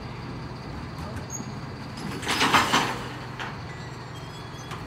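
Mercedes-Benz Econic bin lorry's diesel engine running steadily at the rear, while the Terberg OmniDEL bin lift raises and empties a wheelie bin. A loud burst of noise lasting about half a second comes about halfway through, as the bin is worked at the hopper.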